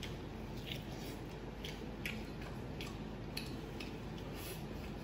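Faint, irregular wet smacks and clicks of a man chewing braised pork knuckle, over a steady low background hum.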